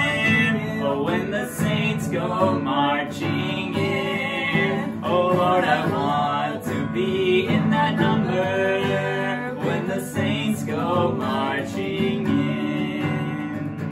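A worship song with an acoustic guitar and a voice singing.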